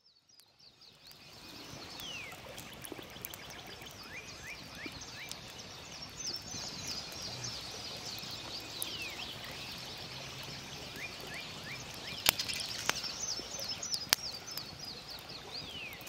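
Outdoor morning ambience of many birds chirping, with short chirps and a few descending whistles over a steady background hiss, fading in at the start. A few sharp clicks come near the end.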